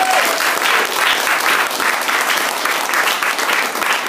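Audience applauding, a steady mass of clapping.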